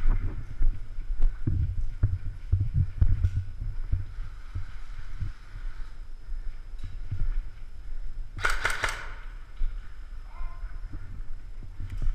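Footsteps and handling knocks on a concrete floor. About two-thirds of the way in comes a short burst of rapid airsoft rifle shots, five or six in under a second.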